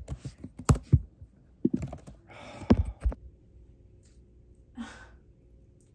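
Several sharp clicks and knocks in the first three seconds, then a faint steady hum.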